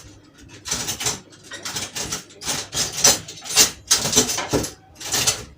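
A pet bird calling, a quick string of short, harsh, noisy calls about two a second.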